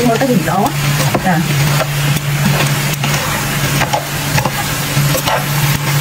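Thin noodles sizzling in a hot nonstick pan as they are tossed and stirred with metal tongs and a spatula, with scattered clicks of the utensils against the pan, over a steady low hum.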